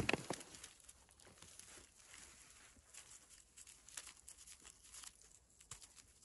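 Gloved hands picking a cluster of wild mushrooms from moss and leaf litter and breaking it apart: faint rustling, tearing and small crackling ticks, with one sharp click right at the start.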